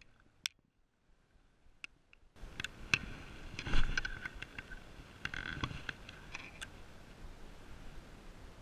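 Close-up rustling and handling noise with scattered clicks and a couple of louder bumps, from the angler's body-worn camera and fishing gear as he works the rod. It starts suddenly a couple of seconds in, after near silence.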